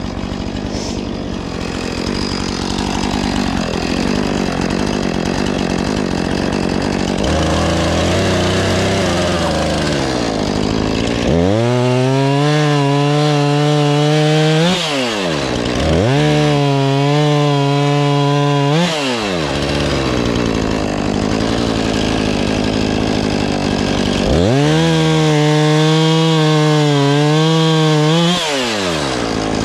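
Husqvarna 450 Rancher two-stroke chainsaw running at low speed, then brought up to full throttle three times for about three to four seconds each while cutting the fallen tree, dropping back down between runs.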